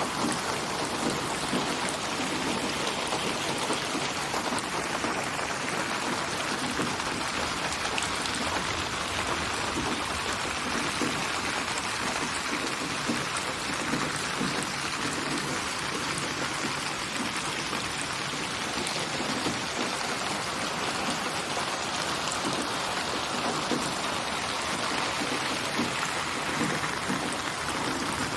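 Steady rain falling, dense patter of drops hitting surfaces, in a synthesized rain soundscape mixed for 8D surround.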